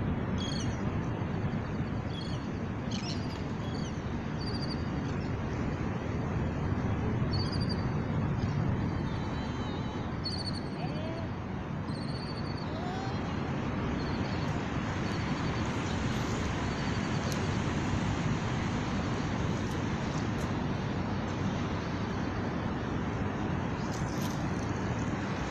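Small birds chirping in short, repeated high notes, mostly in the first half, over a steady low outdoor rumble. A few faint clicks come near the end.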